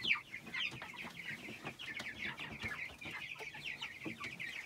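Many young chicks peeping at once, a dense stream of short, high, falling chirps overlapping each other.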